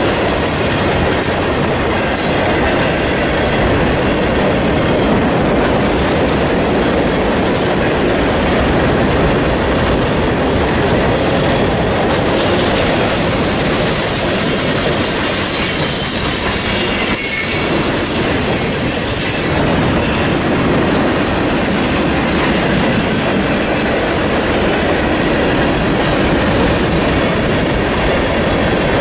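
Freight cars of a Union Pacific mixed freight train rolling past close by, a steady loud noise of steel wheels running on the rails. Thin high-pitched wheel squeal comes in about twelve seconds in and fades after about twenty seconds.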